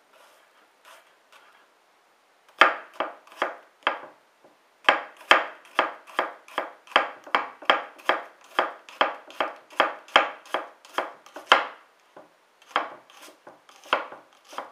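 Santoku kitchen knife slicing an onion on a wooden cutting board: quick, even chops of the blade hitting the board, about three a second, starting about two and a half seconds in, with a short pause near four seconds and thinning out near the end.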